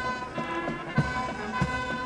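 Brass band music with held notes over a steady low beat, about one thump every 0.6 seconds.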